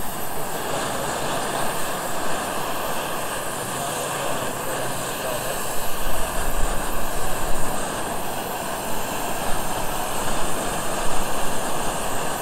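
LPG camping burner running steadily under a titanium pot of water, a continuous rushing hiss, while the water heats toward the boil.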